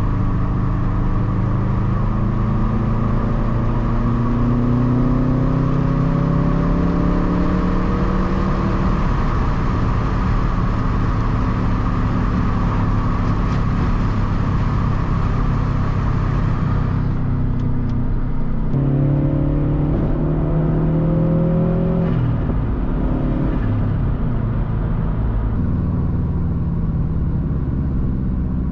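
2013 Subaru STI's turbocharged 2.5-litre flat-four running through an aftermarket Tomei Expreme Ti titanium exhaust while driving, its pitch climbing under acceleration over the first several seconds and again about two-thirds of the way through, then holding steadier near the end.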